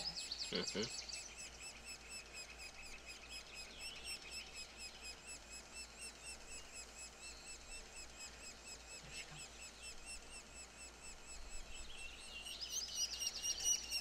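Woodpecker nestlings calling from inside their nest hole in a tree trunk: a faint, steady stream of short, high, rapidly repeated begging calls. The calls grow louder near the end as the parent arrives at the hole with food.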